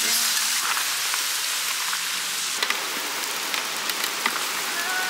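Pork belly, garlic and mushrooms sizzling steadily on a round black griddle plate, the fat rendering, with a few sharp clicks from the metal spatula partway through.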